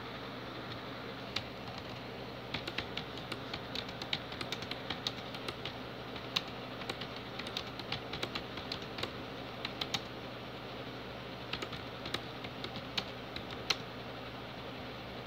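Typing on a computer keyboard: quick runs of key clicks broken by short pauses, over a steady low hum.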